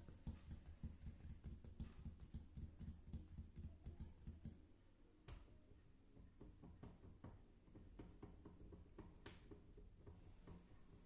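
Faint ASMR finger tapping: a quick run of dull, low taps, several a second, for the first four seconds or so, then sparser, lighter taps and a few sharp clicks.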